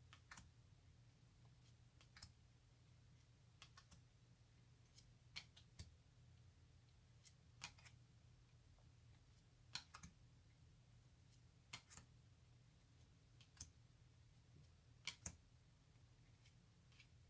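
Faint clicks and snaps of tarot cards being flipped over and laid down one at a time, about one every two seconds, often in quick pairs.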